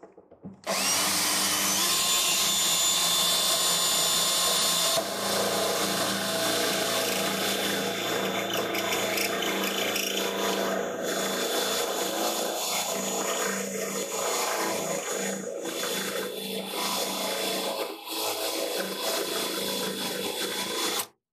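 Cordless Makita drill spinning a spot weld cutter into the steel floor pan to cut out a spot weld. It starts up under a second in and runs with a steady whine, goes a little quieter and rougher from about five seconds in, and stops abruptly near the end.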